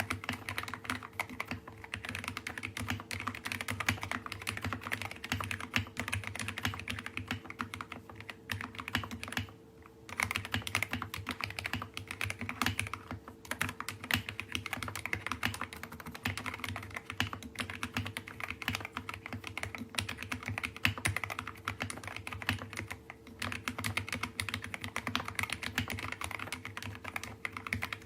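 Fast, continuous typing on a mechanical keyboard with lubed and filmed Gateron Black linear switches, XDA keycaps, and foam and tape mods. Keystrokes run in rapid streams, broken by short pauses a few times.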